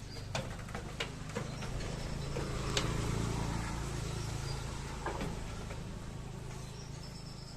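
A low, steady engine-like hum that grows louder about two to three seconds in and then slowly fades, with a few scattered clicks.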